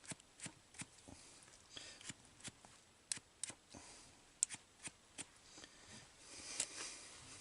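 Hands handling small parts, wires and a plug: irregular light clicks and taps with brief soft rustling.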